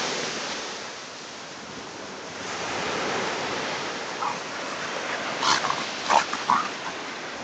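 Surf washing steadily on the shore, with a few short growls and yips from two dogs play-fighting in the second half.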